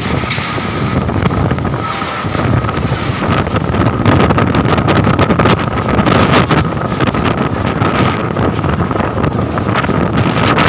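Strong storm wind buffeting the microphone in a loud, continuous roar, with many clatters and knocks mixed in and a faint steady high tone running underneath.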